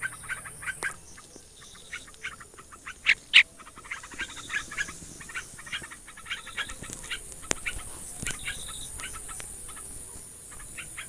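Small birds chirping in quick, repeated short notes, with two louder calls about three seconds in, over a steady high hiss.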